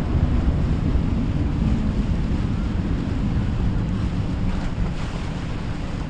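Wind buffeting the microphone over the wash of waves, with a boat's motor running underneath.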